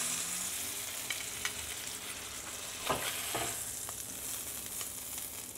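Fish fillets sizzling in butter and olive oil in a cast-iron skillet, with a few clicks and scrapes of a metal slotted spatula against the pan as the fillets are lifted out, the sharpest about three seconds in.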